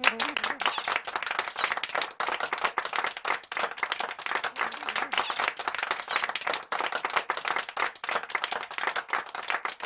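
Applause: many hands clapping in a dense, even patter.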